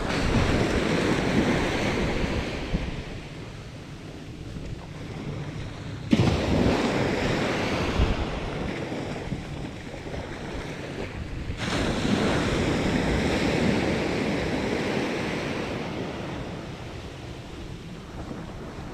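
Small sea waves breaking on a sandy beach and washing up the shore in three surges, the second and third coming in suddenly about six and twelve seconds in, with wind rumbling on the microphone.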